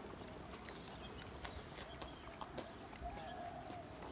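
Faint chewing and mouth clicks from eating, a few scattered sharp clicks, with a faint wavering tone in the background.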